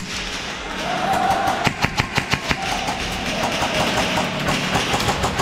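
Airsoft gun firing a quick string of about seven sharp shots about two seconds in, over a steady hum.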